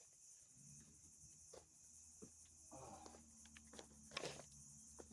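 Near silence: a faint, steady chirring of crickets, with a faint low hum setting in about a second in and a few soft clicks.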